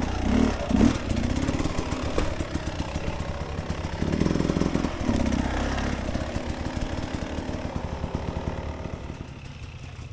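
Dirt bike engine running under varying throttle, with louder surges about half a second in and again around four seconds, then easing off and fading toward the end.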